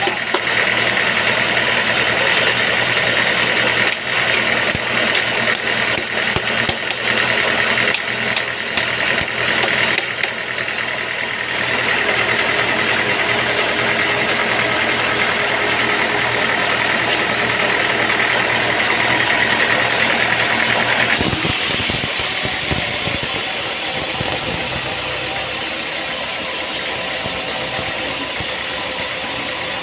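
An engine running steadily under sawmill machinery noise, with clicking and rattling over it. The sound changes abruptly about two-thirds of the way through, to a smoother, steadier running noise.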